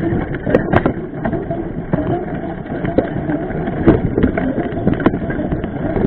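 Mountain bike rolling fast over a rough dirt trail, heard through a camera mounted on the bike: a steady rumble of tyres and rattling, broken by irregular sharp knocks as the bike hits bumps.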